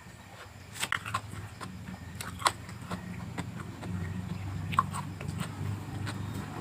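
Crunchy biting and chewing of raw vegetables close to the microphone: a few sharp crunches over a low, uneven rumble that grows louder in the second half.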